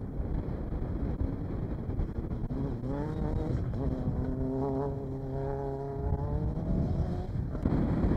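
Off-road race buggy's engine passing, climbing in pitch about three seconds in and then holding a steady note, over a low rumble of wind and tyres on the dirt track.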